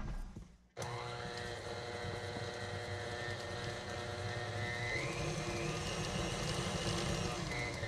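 Electric tilt-head stand mixer starting up about a second in and running steadily, its flat paddle beating cream cheese and sugar in a metal bowl. A whine in the motor sound rises in pitch about five seconds in.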